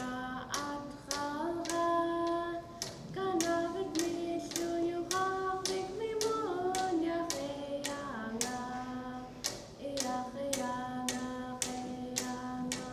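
Yupik dance song: voices singing a chant melody of long held notes over a steady beat of frame drums, about two to three strikes a second.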